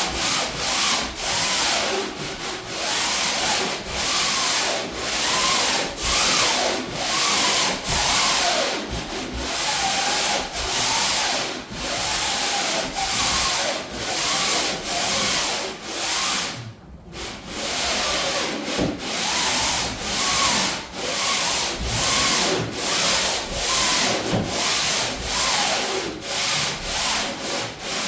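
Sandpaper rubbed by hand over painted plywood in quick, even back-and-forth strokes, briefly stopping about 17 seconds in: a light sanding of the first coat of paint/primer to smooth it for the second coat.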